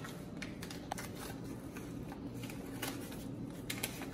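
Cardboard pudding-mix box being opened by hand: a scatter of small, irregular clicks, tears and crackles of cardboard and paper packaging.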